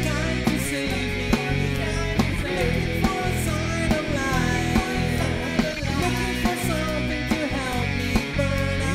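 Rock band playing live: electric guitar, bass and drums with a steady beat.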